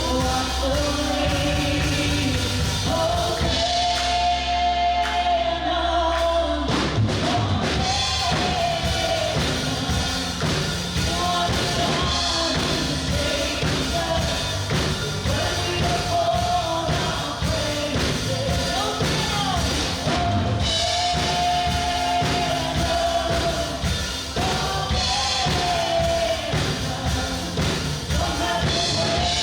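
Worship band playing a song with a lead vocalist and congregation singing, over drum kit, bass and keys. The band eases to held notes for a few seconds early on, then the drums come back in.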